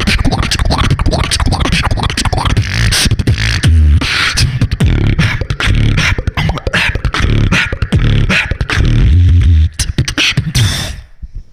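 Beatboxing into a handheld microphone: a dense, fast run of kick and snare-like mouth percussion over deep held bass tones. It cuts off about a second before the end.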